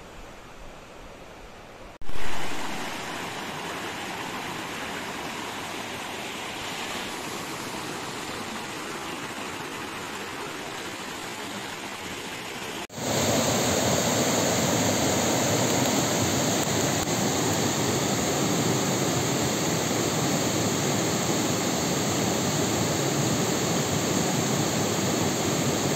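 Rushing water of a small rocky stream, a steady even rush. It jumps louder twice, abruptly, about two seconds in with a brief loud burst, and again about halfway through.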